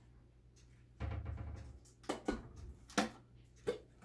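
Handling clicks and knocks from a glass food-storage container with a clip-on plastic lid as its lid is unclipped and opened. After about a second of quiet there is a low thudding rumble, then three or four sharp clicks.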